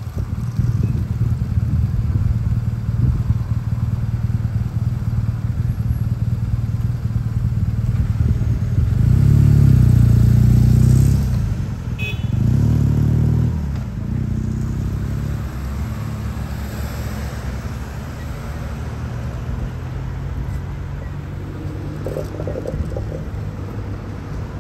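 Road traffic: a steady low rumble with two vehicles passing close, the louder about nine to eleven seconds in and another around twelve to thirteen seconds in.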